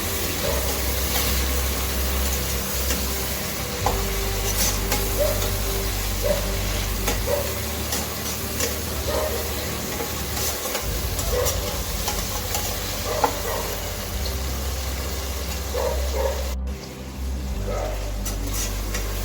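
Chopped tomatoes frying with onions and green chillies in hot oil, sizzling steadily while a spoon scrapes and stirs them in repeated strokes, about once a second, as they cook down soft.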